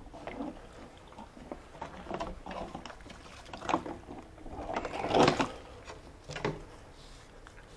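Scattered knocks and clatters of objects being handled, with the loudest and longest about five seconds in.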